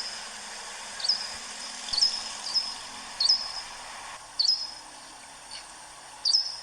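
A small bird repeating a short, high call about once a second, each call a quick downward flick that levels off. There is a steady hiss behind it that drops suddenly about four seconds in.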